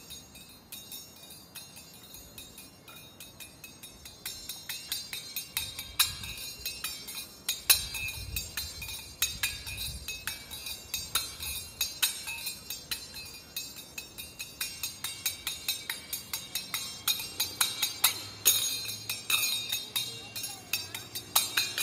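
A pair of small brass hand cymbals clinked together in a steady rhythm, about two or three strikes a second, each with a short metallic ring; the strikes grow louder in the last several seconds.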